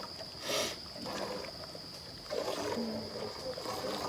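A goat being milked by hand: a stream of milk hisses into the pail about half a second in, followed by fainter squirts. A thin, steady high-pitched whine runs underneath.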